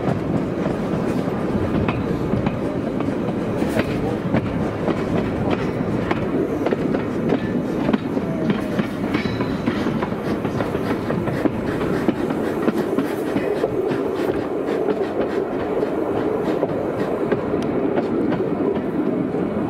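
A riding train's wheels clattering over rail joints and points, with a steady rumble and many small clicks, heard from an open carriage hauled by the replica of Stephenson's Rocket.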